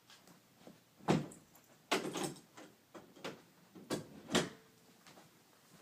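A series of about five short knocks and clunks, the first and loudest about a second in, the last two close together near the end.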